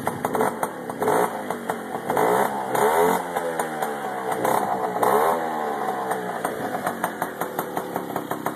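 1980 Puch Newport II moped's 49cc two-stroke single-cylinder engine running through an aftermarket street cheater exhaust pipe, loud and raspy: it idles, is revved up and back down a few times in the middle, then settles back to idle.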